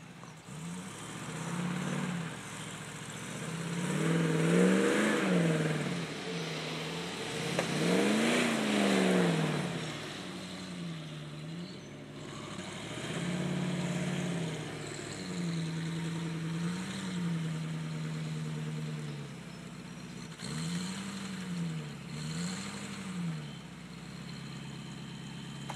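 Toyota Land Cruiser 40-series engine revving up and dropping back again and again while manoeuvring at low speed. Two strong revs come about four and eight seconds in, with steadier running between them and two short blips near the end.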